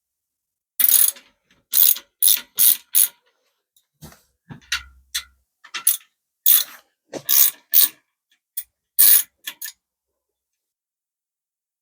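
Ratchet wrench clicking in about a dozen short, uneven strokes while a bicycle brake is unbolted and taken off.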